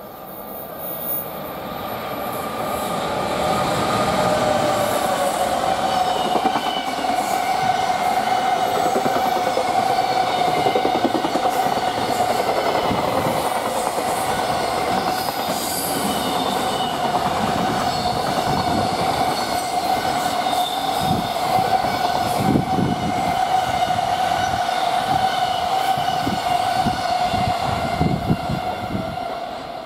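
A JR Freight EF210 electric locomotive hauling a long container freight train passes at speed. The sound builds over the first few seconds as the locomotive comes by, then the wagons roll past in a steady rumble. A steady high whining tone runs over the rumble, with wheel clacks over the rail joints.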